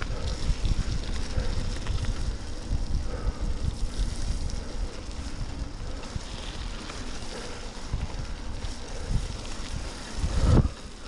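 Wind buffeting a GoPro Hero Session 5's microphone as a mountain bike rolls along a wet, muddy dirt track, the tyres rumbling over the ground, with a louder surge near the end.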